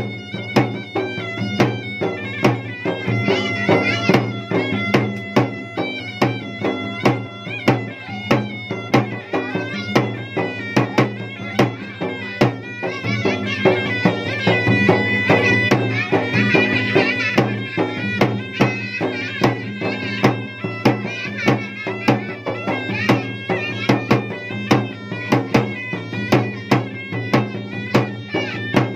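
Makassarese gendang (ganrang) drumming in a fast, steady rhythm, with a shrill reed wind instrument, a pui-pui shawm, playing a wavering melody over a continuous drone.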